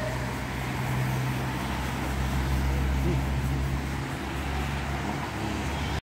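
Road traffic: a passing motor vehicle's low engine hum, strongest through the first few seconds and easing off about four seconds in.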